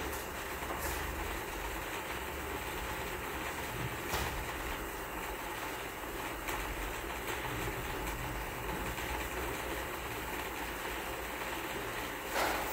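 Steady low rumble and hiss of background noise, with a faint click about four seconds in.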